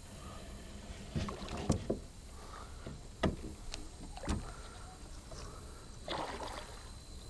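Knocks and thumps on the hull of a small aluminum boat: about four sharp ones in the first part, then a short rush of splashing or rustling noise near the end.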